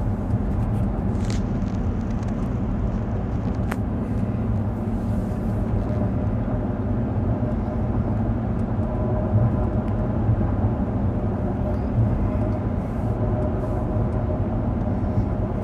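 Steady cabin road noise of a 2016 Cadillac Escalade ESV cruising at about 53 mph: a low, even rumble of tyres and drivetrain.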